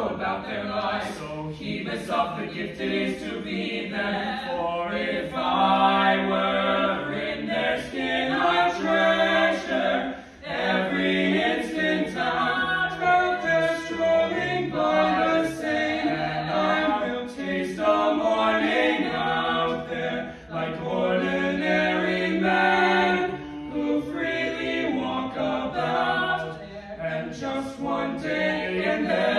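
A four-voice vocal quartet singing a cappella in harmony, with no instruments, pausing briefly between phrases.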